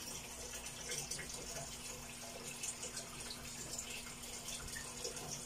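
Tap water running into a washing machine tub as it fills: a faint, steady rush of water with a low steady hum underneath.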